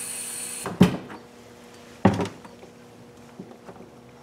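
Water spraying from the nozzle holes of a faucet-mounted flushing adapter into a plastic bucket, cut off shortly into the clip as the tap is shut. Two sharp knocks follow, one right after the water stops and one about two seconds in, as the plastic bucket is handled and set down in the utility sink.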